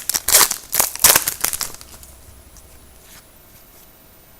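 Crinkly rustling of a trading-card pack's wrapper and cards being handled, in a quick run of strokes for about the first two seconds, then only a few faint ticks.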